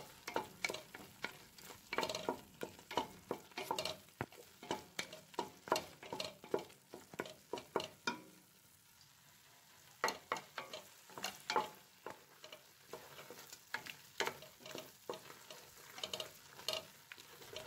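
Wooden spoon stirring and scraping a thick egg-and-onion pastilla sauce around a steel pot as it cooks down until dry: a quick, uneven run of short scrapes that stops for about two seconds near the middle.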